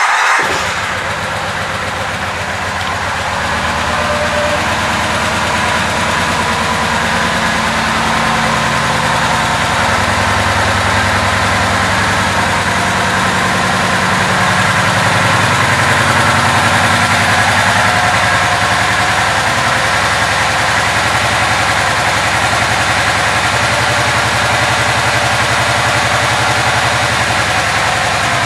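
2009 Kawasaki Vulcan 2000 Classic LT's 2,053 cc V-twin idling steadily, freshly started, a little louder after the first few seconds.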